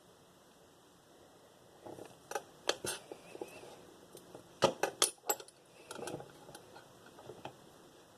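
Small metal lock parts and tools clicking and clinking as a Master Lock 410 padlock is taken apart: a few sharp clicks about two to three seconds in, then a louder cluster of clinks about five seconds in and a few faint taps after.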